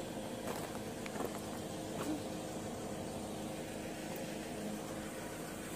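Steady low rumble and hiss of background noise with a few faint clicks, no voices.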